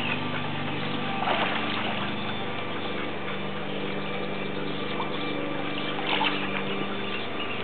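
Steady mechanical hum with several constant low tones, with light water splashes from a swimmer's strokes about a second in and again around six seconds.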